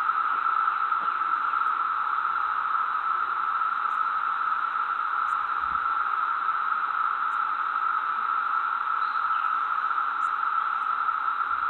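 A steady, even hiss that does not change, strongest in the middle of the range.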